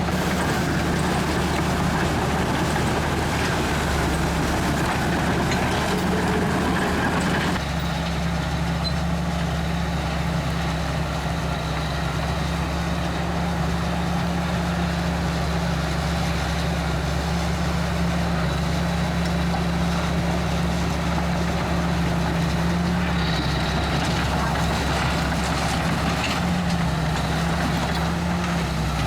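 Komatsu D61EX bulldozer's diesel engine running steadily, with its higher-pitched mechanical noise easing off about seven seconds in.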